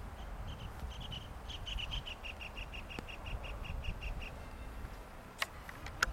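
A bird calling: a rapid run of short, high notes, about six a second, lasting about four seconds, over a low wind rumble. Two sharp clicks near the end.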